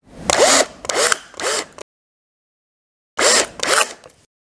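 Drill driver driving screws into wood in five short trigger pulls, three close together and then two more after a pause of about a second and a half. The motor's pitch rises and falls with each pull.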